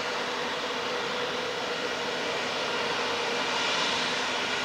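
Boeing 737-800's CFM56-7B turbofan engines running at high power as the jet rolls along the runway: a steady jet noise with a faint hum under it, growing a little louder and brighter about three seconds in as the aircraft comes abeam.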